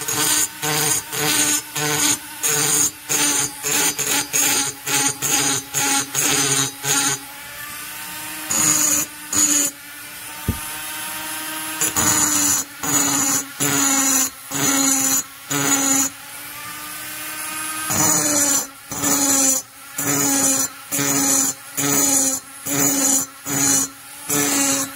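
Handheld rotary grinder with a small burr grinding inside the lower transfer port of an Echo CS-670 chainsaw cylinder. The tool runs with a steady whine, broken by short cutting passes about two a second in runs of several seconds with pauses between. The cut sounds a little tinny as the burr reaches the plating of the cylinder bore.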